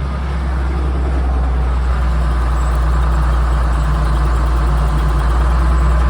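Tractor engine running steadily while pulling a planter in the field, a deep continuous drone that slowly grows louder.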